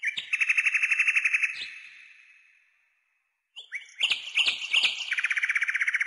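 A songbird singing two phrases, each with quick notes and a fast trill, trailing off in a long echoing fade, with a pause of about a second between them.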